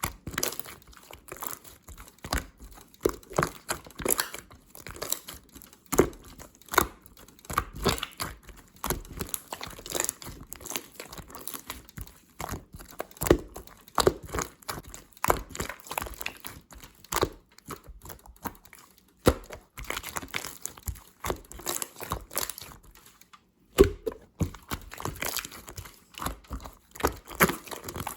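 Clear slime being squeezed and pressed by hand, making irregular sharp pops and crackles from trapped air, several a second, with a brief pause about four-fifths of the way through.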